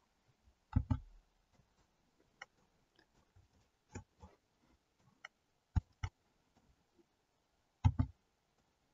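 Sharp clicks from working a computer at a desk, most of them in quick pairs like a button pressed and released. There are three louder pairs, about a second in, around six seconds and near the end, with fainter single clicks between them.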